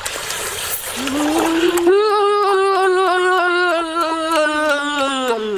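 A person's voice holding one long, drawn-out vocal note for about three and a half seconds, rising at the start and falling away near the end. Before it, for about the first second, come wet, clicky chewing and lip noises.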